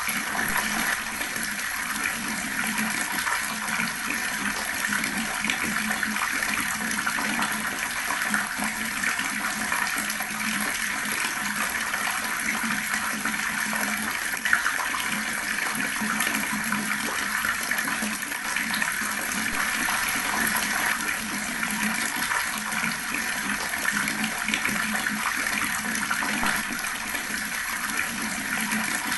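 Water running steadily from a tap in a slow, unbroken stream, splashing continuously.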